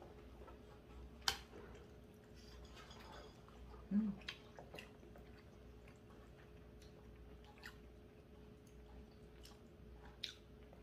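Quiet sounds of people eating at a table: faint chewing with scattered sharp clicks of chopsticks against bowls and plates, over a low steady hum. A sharp click just after a second in and a short low sound about four seconds in are the loudest moments.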